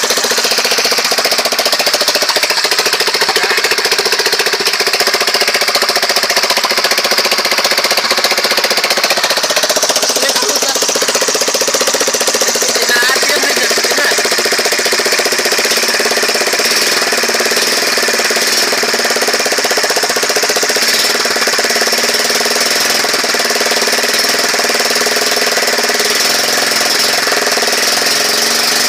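Honda GX200 single-cylinder four-stroke petrol engine, governor removed, running steadily and loudly as it drives a large pulley through a flat belt.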